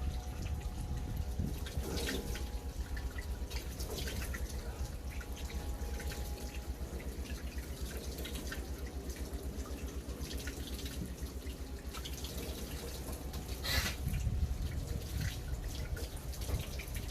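Water running from a tap with dripping and small splashes as hands wash, and one louder splash about 14 seconds in.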